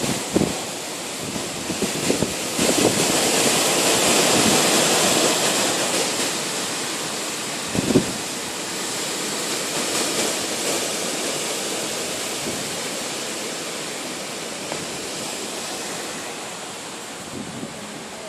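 Gusting gale-force storm wind, a steady rushing that swells about three seconds in and slowly eases off. A brief low buffet comes about eight seconds in.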